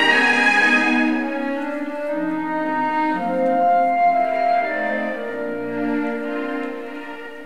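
Orchestral ballet music: a loud, full passage thins out about a second in to softer sustained melodic lines that fade toward the end.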